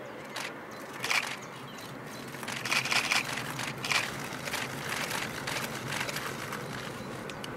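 Steam locomotive 434.2186 working a freight train at a distance, its exhaust coming through as an uneven series of soft chuffs, busiest in the middle, over a steady low rumble.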